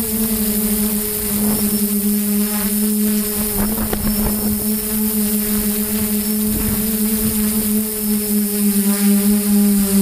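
Motor and propeller of a Xugong V2 FPV model plane, heard from its onboard camera: a steady hum of nearly constant pitch over rushing air, dipping slightly near the end.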